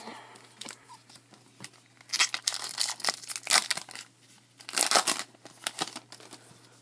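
A baseball card pack's wrapper being torn open and crinkled: crackly rustling that starts about two seconds in, with a second burst around five seconds.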